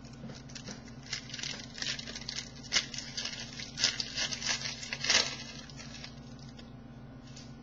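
Baseball cards being handled and slid against each other: a run of crinkling, clicking rustles for about four seconds that then dies away, over a faint steady low hum.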